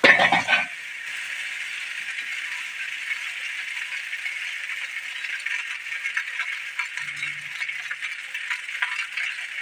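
Steady crackling sizzle of food frying in hot oil in a pan, after a brief clatter at the start.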